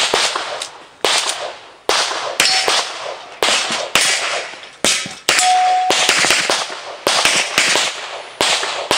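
Rapid handgun fire during a practical pistol shooting course of fire: well over a dozen shots, many in quick pairs, each with a short echo.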